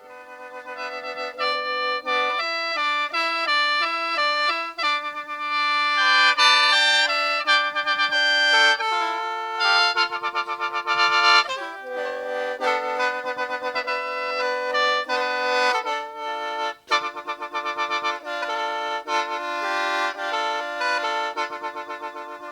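Chinese sheng, a free-reed mouth organ, playing a melody in sustained chords over held low notes, with a brief break about 17 seconds in.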